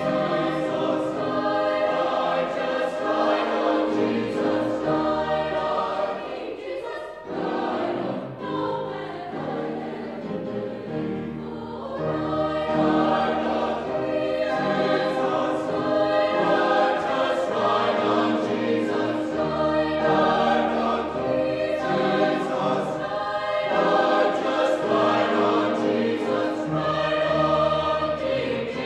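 A choir singing in sustained, many-voiced chords over held low bass notes, softening for a few seconds about seven seconds in before swelling again.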